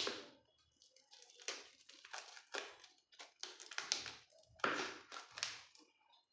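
Crinkling and rustling of packaging being handled, in a series of short bursts with a few soft knocks.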